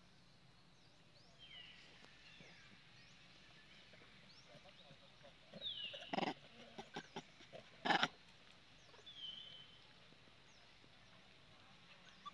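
Infant long-tailed macaque giving high, thin squeals that slide downward, three times, with two loud, sharp, harsh sounds in the middle, around the moment an adult macaque grabs it.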